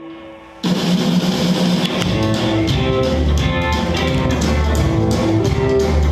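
Instrumental band music with guitar and drums. It opens on a soft held note, the full band comes in suddenly under a second in, and a deep bass part joins about two seconds in.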